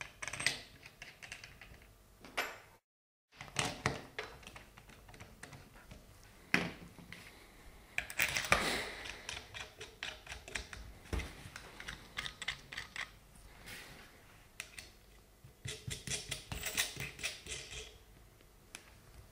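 Irregular small clicks and taps of a hex key turning the cylinder head screws and hands handling the metal and plastic parts of a Wabco air suspension compressor as it is put back together.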